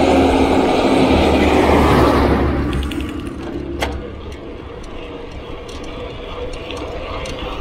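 A heavy truck passes close by, its engine and tyres loud with a low rumble for the first two seconds or so before fading away. After that the mountain bike's rear freewheel hub ticks as the bike coasts downhill, with one sharper click a little before the middle.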